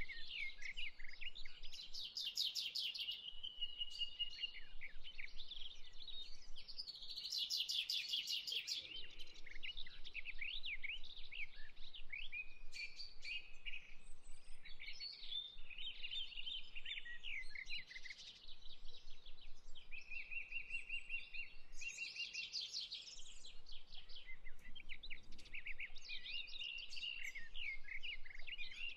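Dense chorus of many birds calling and singing at once: short chirps, quick rising notes and fast trills, overlapping without a break.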